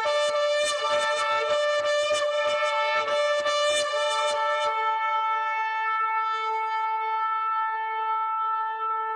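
A shofar sounding one long held blast. For about the first five seconds a second, higher tone and a run of short pulses run through it. After that a single steady note carries on.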